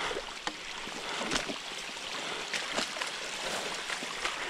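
Water running steadily through a beaver dam, with sloshing and several short splashes.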